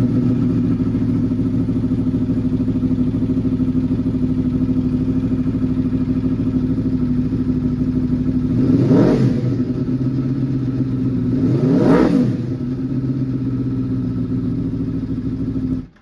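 Aprilia Tuono V4 1100RR's V4 engine, breathing through a Leo Vince carbon fiber exhaust, idling steadily and blipped twice, the revs rising and falling quickly about nine and twelve seconds in, then shut off suddenly near the end. Its response to the throttle is good.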